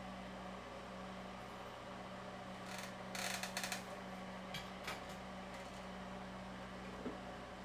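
Steady hum of bench ventilation, with a brief burst of clicks and rattles about three seconds in and a few light ticks later.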